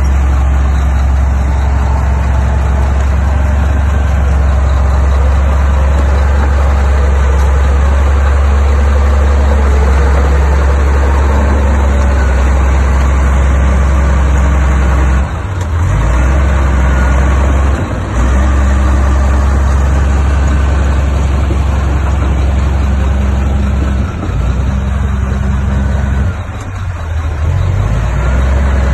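Heavy diesel engine of earthmoving machinery running steadily with a loud, deep drone, dipping briefly a few times.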